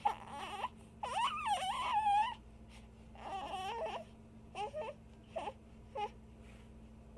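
Baby laughing and squealing in a run of bursts: a long, wavering one about a second in, another a little later, then a few short chuckles trailing off.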